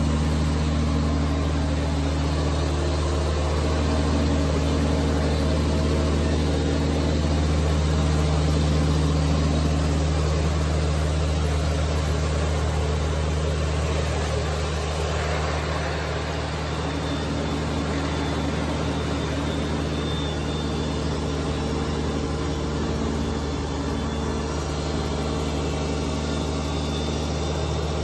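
Kubota BX2380 sub-compact tractor's three-cylinder diesel running steadily under load, driving a front-mounted Kubota BX2816 snowblower as it throws snow. It eases off slightly about halfway through.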